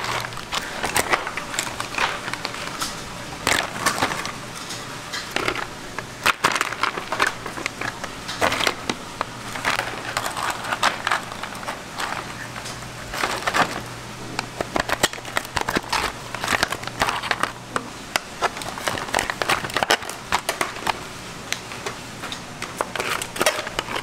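Clam and scallop shells clattering and clicking against each other as gloved hands rummage through heaps of raw shellfish in metal trays: a dense, irregular run of small sharp knocks.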